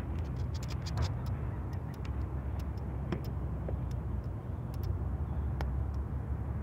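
Outdoor ambience: a steady low rumble with many scattered, irregular sharp clicks and ticks.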